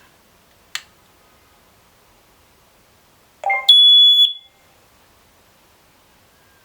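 Electronic beeper of a HOMSECUR ZD01 alarm system: a sharp click about a second in, then about three and a half seconds in a brief lower-pitched sound followed by a single loud, high-pitched beep lasting about half a second.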